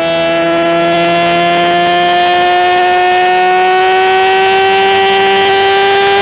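Motorcycle engine running at high revs under acceleration, its pitch climbing slowly and steadily in a high gear.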